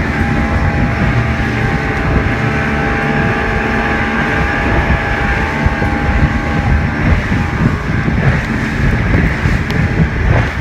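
Speedboat engine running steadily at cruising speed, with wind buffeting the microphone and water rushing past the hull.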